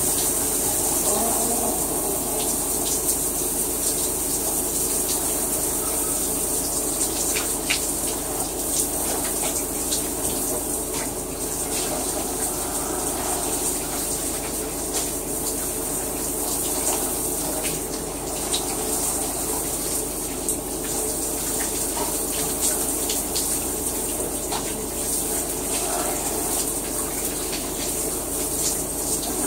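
Shower running steadily, its water spraying and splashing, with scattered sharper taps of drops.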